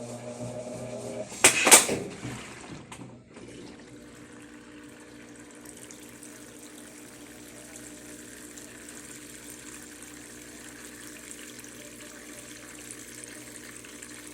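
Electrolux Turbo Limpeza LF10 top-load washing machine filling with water, the inlet running steadily into the drum. A loud sudden burst comes about a second and a half in, before the steady flow settles.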